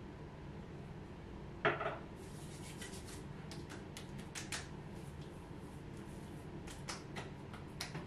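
Plastic skincare bottles and caps handled at a bathroom counter: one louder knock about a second and a half in, then a string of small clicks and taps.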